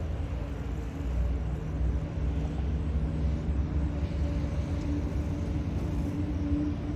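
Steady drone of Thai kites' hummers humming overhead, a held tone with a lower undertone, over a low rumble of wind.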